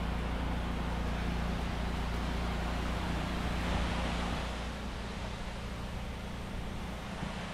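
Pressure washer's engine running steadily under the hiss of its water spray; both ease slightly about four and a half seconds in.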